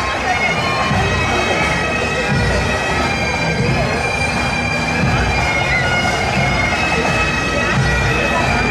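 Highland bagpipes of a marching pipe band playing a tune over their continuous drone.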